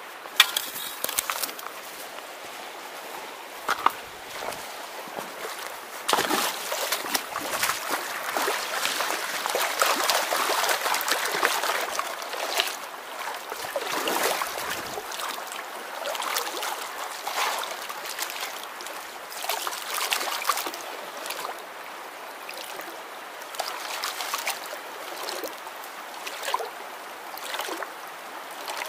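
Water sloshing and splashing in a black plastic gold pan as it is swirled and dipped in a shallow creek, surging and easing unevenly, over the trickle of the creek. There are a few sharp knocks in the first second.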